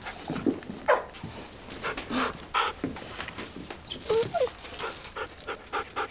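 Border collie whimpering and whining in short bursts, some calls falling in pitch; the strange noise is taken as a sign that the dog may have swallowed a pebble.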